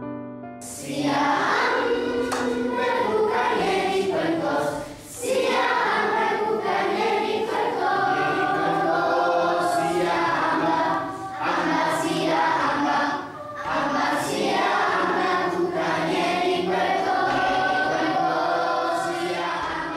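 A choir singing together, starting just under a second in and going on in phrases broken by short pauses.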